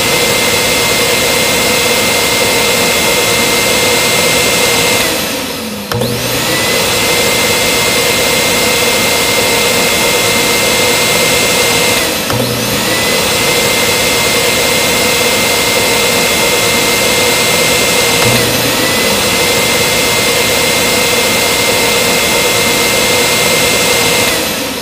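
Small handheld vacuum cleaner motor running with a steady high whine. It dips briefly and winds back up about every six seconds.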